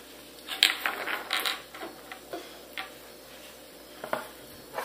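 Small hard-plastic toys and hollow plastic egg shells handled on a table. A quick cluster of clicks and scrapes comes about half a second to a second and a half in, followed by a few scattered single clicks.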